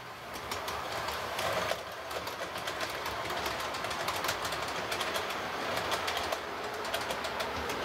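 Model railway train running along the track: a steady whirr with rapid clicking of the wheels over the rail joints, growing a little louder.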